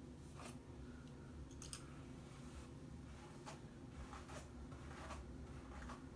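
Faint, irregular swishing strokes of a hairbrush being pulled through hair.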